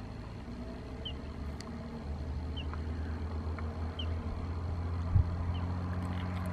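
Faint outdoor ambience: a low steady rumble like a distant engine or wind, with a short faint high chirp repeating about every one and a half seconds.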